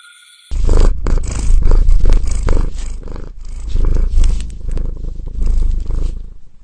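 Domestic cat purring loudly, very close to the microphone, a deep pulsing rumble that swells and fades with each breath; it starts abruptly about half a second in.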